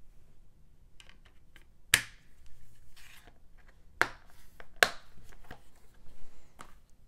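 Plastic Blu-ray case being snapped shut and handled on a tabletop: a few sharp clicks, the loudest about two seconds in and twice more near four and five seconds, with lighter taps and rubbing between.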